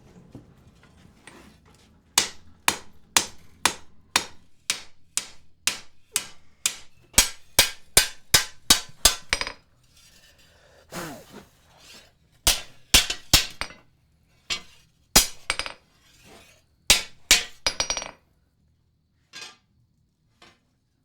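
Hammer blows on steel at an anvil, each a sharp ringing strike, coming about two a second in two runs with a short pause between them, then a couple of lighter taps near the end.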